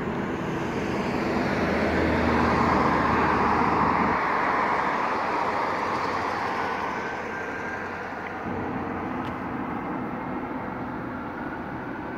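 Road traffic: a car passes, its engine and tyre noise swelling to a peak about two to four seconds in and then fading, over a steady background of traffic.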